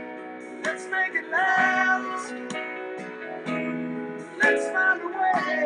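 Music: a slow pop ballad with strummed guitar chords and short sung phrases.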